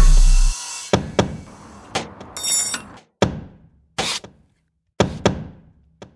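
A string of sharp knocks and clunks from tools and brake parts (caliper, disc, hub), about one or two a second. Each trails off with an echo into dead silence, cut together as edited sound effects. It opens with a deep booming hit, and a short hiss comes about halfway through.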